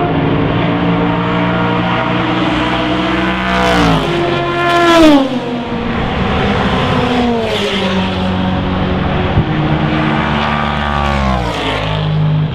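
GTE race cars passing at full speed, with a V8 Aston Martin Vantage GTE among them. The loudest car goes by about five seconds in, its engine note dropping sharply in pitch as it passes. More cars follow, each note falling as it goes by.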